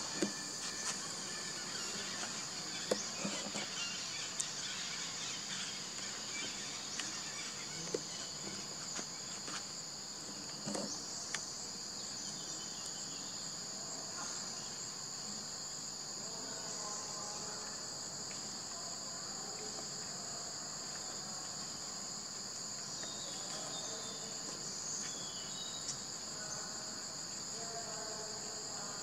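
Steady, high-pitched insect chorus, a continuous shrill drone on two pitches, with a few faint clicks and knocks in the first half.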